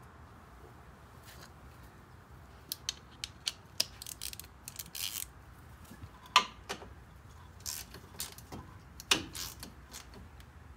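Hand ratchet clicking in short, irregular runs, with small metal clinks, as the front differential drain plug with a new nylon washer is run back in on a Polaris Ranger 500. The loudest clicks come about six and a half and nine seconds in.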